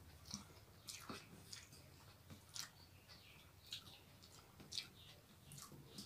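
Faint chewing and mouth sounds of people eating rice by hand, with about a dozen soft clicks and smacks scattered throughout.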